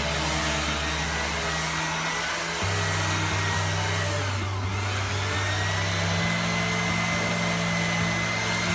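Steady whirring motor noise with a thin high whine, under background music whose low bass notes change every few seconds.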